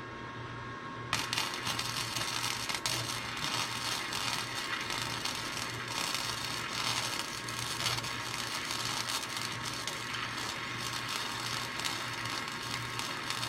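Wire-feed welder arc crackling steadily as a bead is run with the trigger held all the way down, starting about a second in and running to the end, over a steady electrical hum.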